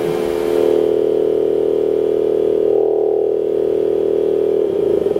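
Auxetophone compressed-air amplifier sounding a loud, steady mid-pitched tone through its horn, with its valve driven by an electrodynamic shaker. Near the end the tone turns into a rapid pulsing warble of about ten beats a second.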